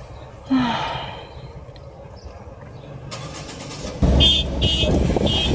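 Car cabin noise: a quiet low hum, then about four seconds in the louder low rumble of the car's engine and tyres on the move. Several short high-pitched beeps ring out over the rumble. A brief vocal sound comes about half a second in.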